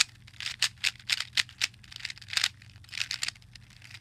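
Plastic Rubik's Cube layers being twisted quickly by hand, scrambling the cube: irregular runs of rapid clicking and rattling.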